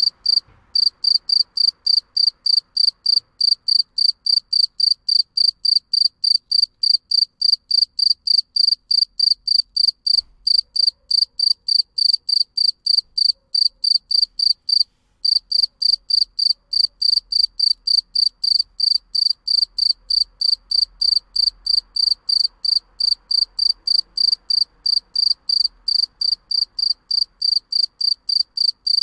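Field cricket chirping: a steady run of short, high-pitched chirps at about three a second, with a brief pause near the start and another near the middle.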